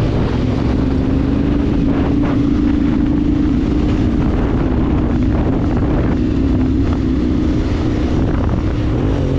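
Vehicle engine running steadily under way, its note climbing slightly in the first few seconds and then holding, with wind noise over the microphone.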